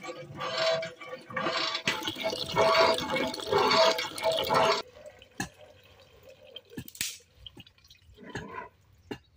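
Water gushing from a hand-pump tube well into a plastic bucket, surging in regular pulses about once a second as the handle is worked. The pumping stops about five seconds in, leaving only scattered drips and small splashes.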